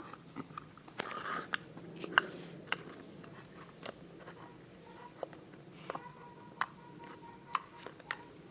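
Homemade slime being squeezed and poked in the hands, giving scattered wet clicks and little pops.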